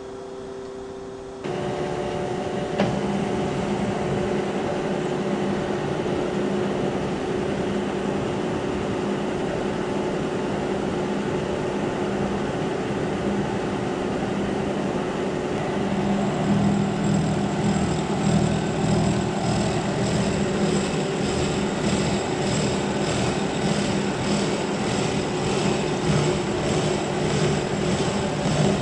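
Kearney & Trecker horizontal milling machine running a 24-tooth, 4-inch side-milling cutter at about 98 RPM, with coolant pouring over the cut, milling a spline into a shaft. The machine noise jumps up suddenly about a second and a half in. About halfway through an even pulsing sets in, about one and a half beats a second, as the cutter works along the shaft.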